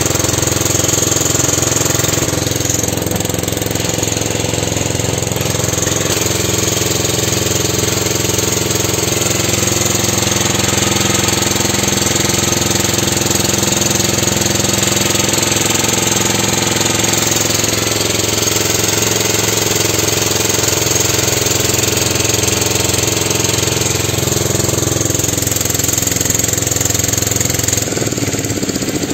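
Engine of a motor tour boat running steadily under way, a constant drone that holds its pitch.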